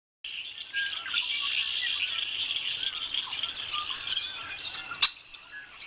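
A dense chorus of many small birds chirping and twittering at once, with quick rising and falling chirps. There is one sharp click about five seconds in.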